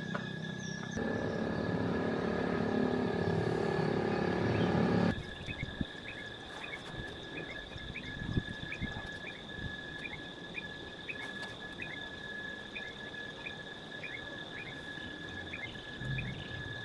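Background music that cuts off abruptly about five seconds in. It gives way to a steady high-pitched insect drone, with short chirps repeating about twice a second from crickets or frogs.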